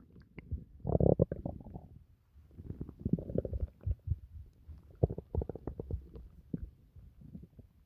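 A human stomach gurgling and rumbling while digesting after a meal. It comes in irregular bouts of bubbly pops and low rumbles: the loudest about a second in, another around three seconds, and a scattered run of pops between five and six and a half seconds.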